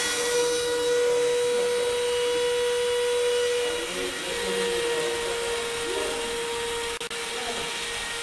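Spindle of a homemade CNC mill running with a steady whine while its small bit engraves lettering into a board, with the hiss of the cutting underneath.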